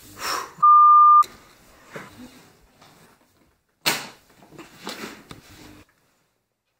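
A single loud electronic beep, one steady tone held for just over half a second and cut off sharply. About four seconds in, a sharp click as the briefcase's latch snaps open, with soft handling noises.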